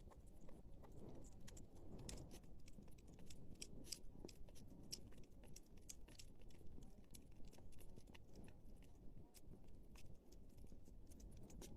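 A hedgehog chewing its food: a quiet, irregular run of small crunching clicks.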